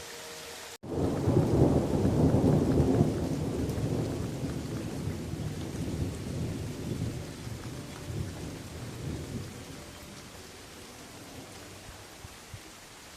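Steady rain falling in a forest, with a long rolling thunder rumble that starts sharply about a second in, is loudest over the next two seconds, and fades slowly over several seconds.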